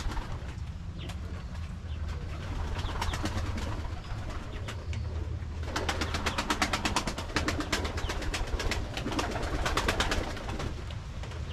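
Domestic pigeons in a loft, with a spell of rapid clicking about six seconds in and another near the end.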